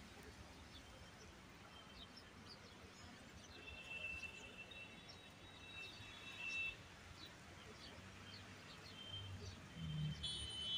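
Faint outdoor ambience of birds chirping: scattered short high calls, with one longer held call about four seconds in and a cluster near the end, over a low background rumble.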